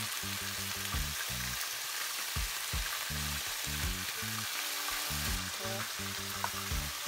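Diced onions sizzling in butter in a stainless steel pan, with whole red snapper frying in a second pan: a steady frying hiss. A rhythmic background music bass line runs underneath.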